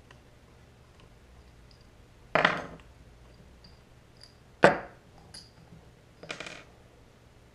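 Brad nailer being taken apart by hand: two sharp knocks a little over two seconds apart, then a softer clatter near the end, with a few light clicks between.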